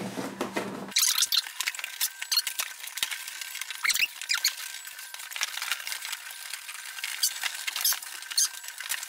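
Plastic bag and crumpled packing paper crinkling and rustling as they are pulled out of a cardboard shipping box, with a few short squeaks.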